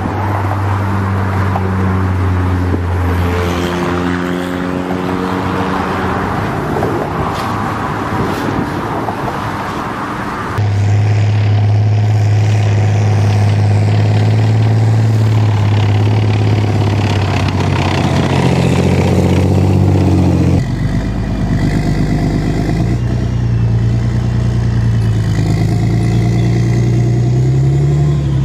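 Motor vehicle engines running and revving, in three separate clips with abrupt changes about ten and twenty seconds in.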